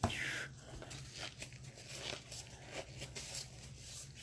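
A foil hockey card pack wrapper being torn and crinkled: a short tearing sound at the start, then scattered crackles and ticks.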